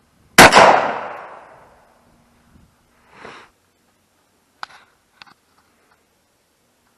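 A single 12-gauge shotgun blast from a Winchester Model 37 single-shot break-action gun firing a bird-shot load, with its echo dying away over about a second and a half. A couple of small metallic clicks follow a few seconds later.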